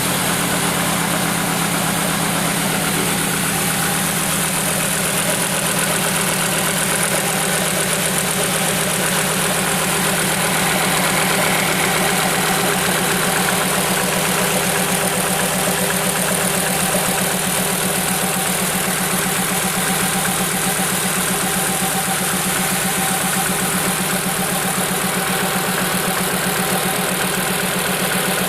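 Fiat Marea 2.4's inline five-cylinder engine idling steadily with a strange noise, which the owner suspects comes from the variable valve timing (cam phaser) or the manifold.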